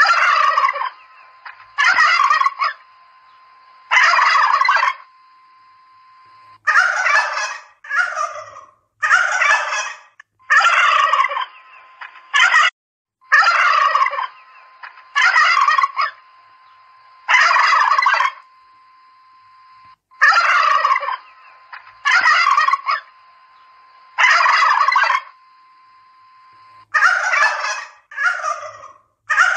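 Domestic turkeys gobbling over and over, one gobble every second or two, with a faint steady hum underneath.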